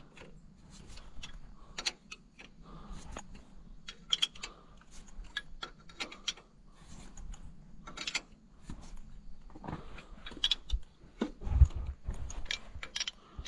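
Steel wrench clicking and scraping on the bolt heads of a tractor's belt pulley housing as the bolts are worked in, in small irregular metallic clicks and knocks, with one heavier knock late on.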